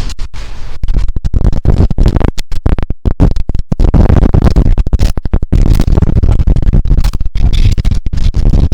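Wind buffeting an action camera's microphone: a loud, rumbling low noise that keeps breaking up in short dropouts.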